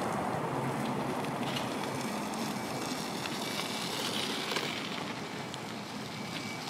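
Outdoor street ambience: a steady wash of distant traffic noise, with a few faint short high beeps.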